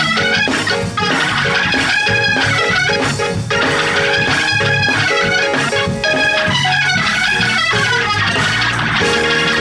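Loud gospel church music played live by a band, with organ prominent over a driving rhythm.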